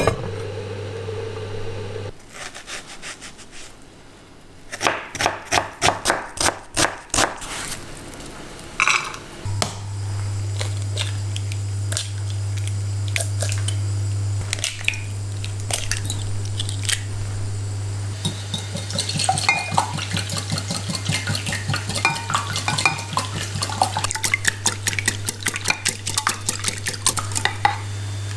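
Kitchen utensils knocking and clinking against pots and dishes: a quick run of sharp strikes about five seconds in, then rapid clinking through the second half, over a steady low hum that comes in about halfway through.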